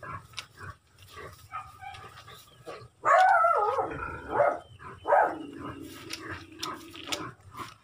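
Animal calls: a loud wavering cry about three seconds in, then a longer call that slides down in pitch and holds steady for about two seconds.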